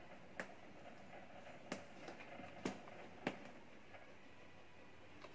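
Quiet room hiss with four faint, sharp clicks spread about a second apart, from a pair of Abyssinian guinea pigs shifting about beside their food.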